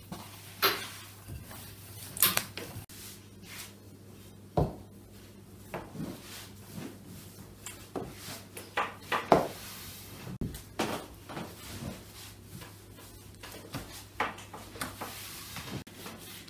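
Wooden rolling pins rolling and knocking on a wooden pastry board as dough is rolled out, with irregular sharp knocks and clatters over a low steady hum.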